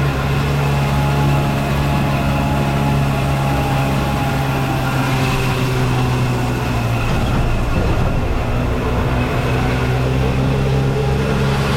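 Engine running steadily, a low even hum with a brief wavering about seven seconds in.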